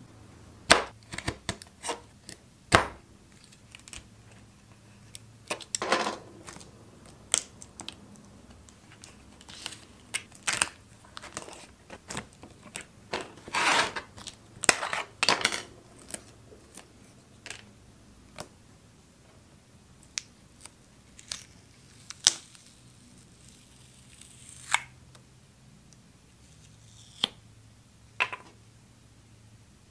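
Hands demolding a cured silicone mould: irregular sharp clicks and taps as thin wooden box walls are pried off the blue silicone block, with a few longer tearing, peeling rasps as the rubbery silicone is pulled away.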